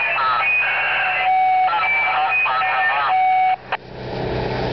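Two-way radio squawking: a garbled, warbling transmission broken by steady beep tones, cutting off sharply about three and a half seconds in. A low engine rumble then comes up near the end.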